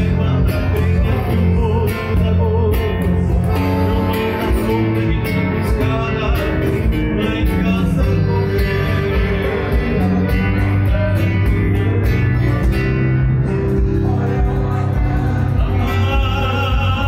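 Live gaúcho folk band: a man singing with acoustic guitar, piano accordion, electric bass and cajón, playing steadily at a moderate tempo.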